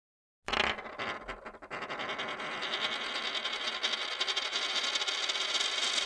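Outro logo sound effect: a sudden hit about half a second in, then a bright, jingling shimmer.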